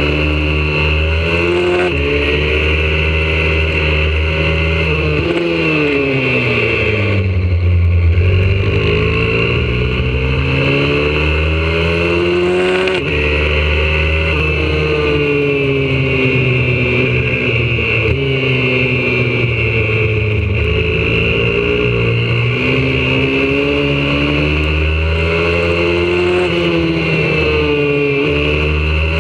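YCF 125cc four-stroke pit bike engine at racing pace, heard from a camera on the bike: the engine note climbs as it accelerates and falls under braking, again and again, with a long deep drop about seven seconds in before it climbs again.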